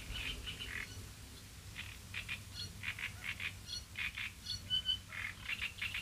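Frogs croaking in a run of short, irregular calls, with a few brief high bird chirps mixed in.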